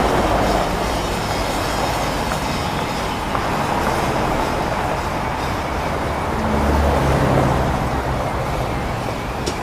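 Steady mechanical rumble and noise of heavy machinery, with a low engine hum that swells briefly a little past the middle.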